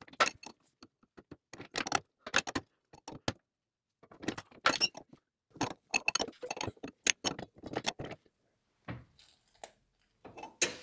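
A steel wrench clinking and ticking against a hydraulic lock-out valve and its fittings as the valve is turned tight into the tractor's rear lift cylinder. The clicks come in irregular clusters of metal-on-metal taps, with two short pauses as the wrench is repositioned.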